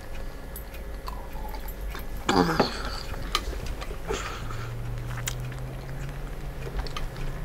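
A person chewing a hamburger slider with small wet mouth clicks. About two and a half seconds in there is one short falling vocal exclamation, and from about four and a half seconds a low steady hum.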